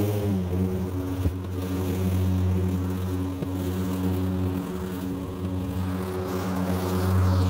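Hart 40V 20-inch battery lawn mower running as it cuts grass: a steady electric hum with a buzz, dipping briefly in pitch at the start.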